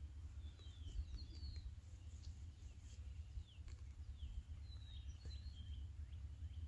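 Small birds chirping in two short clusters, about a second in and again near five seconds, over a low wind rumble on the microphone. Faint scattered scrapes and ticks of a trowel chipping into wet clay soil.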